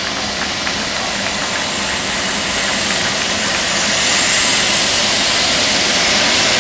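Blue Angels F/A-18 Hornet jet engines running on the ramp before takeoff: a loud rushing noise with a high whine that slowly rises in pitch, growing louder about three to four seconds in.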